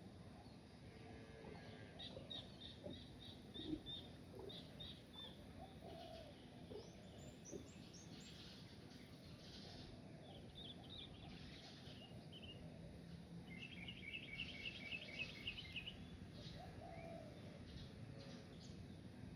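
Birds chirping in short series of quick high notes, with a faster run of about ten notes near the middle, and a few soft low calls in between, over faint steady outdoor background noise.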